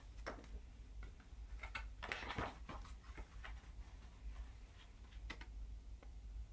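Faint taps and rustles of paper album inserts and a booklet being handled, with a louder rustle about two seconds in, over a low steady room hum.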